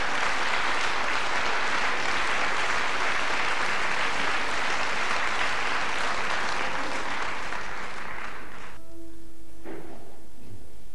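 Audience applauding steadily, cut off sharply about nine seconds in. A faint held instrument note follows near the end.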